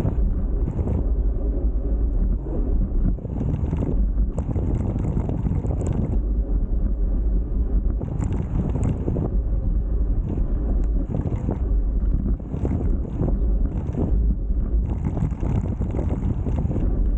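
Wind buffeting the microphone of a camera on a moving road bike: a loud, uneven low rumble that surges and eases, with brief faint high hissing now and then.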